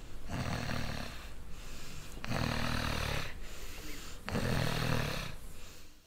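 Deep, rumbling snoring: three long snores, each with a rattling low rumble, about two seconds apart.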